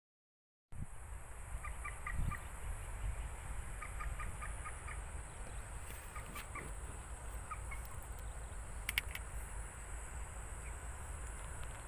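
Wind rumbling on the microphone, with a bird's short chirps in a few quick runs of repeated notes. It starts after a brief silence.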